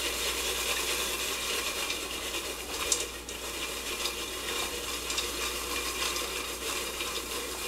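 Hot oil sizzling in a metal pot of popcorn kernels as it is shaken over an electric burner, with a few sharp pops of kernels bursting, the loudest about three seconds in.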